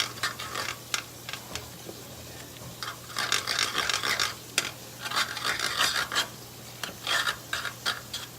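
A utensil stirring and scraping thick buffalo chicken dip of cream cheese, shredded chicken and hot sauce around a pan on the stove, in irregular bouts of scraping strokes.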